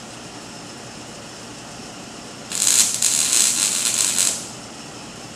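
MIG welding arc crackling on a steel frame for about two seconds, starting about halfway in, over a steady low background hum.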